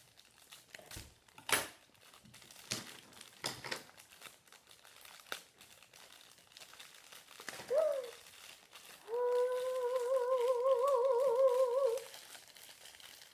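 Plastic blind-bag wrappers of LOL Surprise dolls crinkling and rustling as they are unwrapped. After a short vocal sound, a child hums one long wavering note for about three seconds near the end, the loudest sound here.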